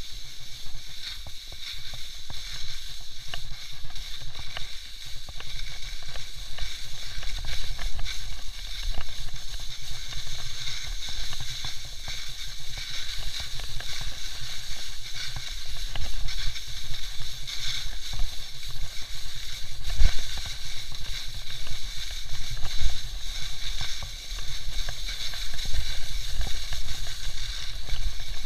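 Skis sliding and scraping over snow in a steady hiss, with wind rumbling across the microphone of a camera moving down the slope with the skier.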